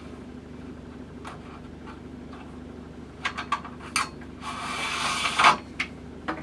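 Rod-rest pulleys being slid along and off the track of a rod-wrapping lathe bed: a few light knocks and clicks, then a scraping slide lasting about a second.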